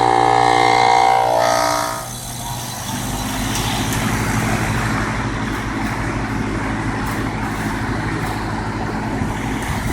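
Heat pump outdoor unit coming out of defrost. A steady whine for the first two seconds stops, and about a second later a low steady hum with air noise starts up, typical of the outdoor fan restarting after defrost.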